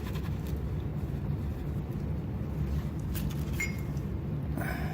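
A steady low background hum, with a few light clicks and scrapes of small parts being handled in the second half.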